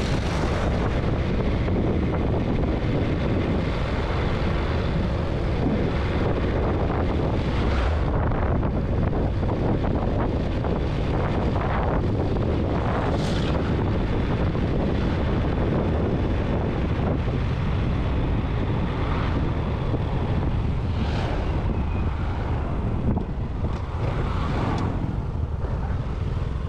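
A vehicle driving along a road: steady engine and road noise with wind buffeting the microphone.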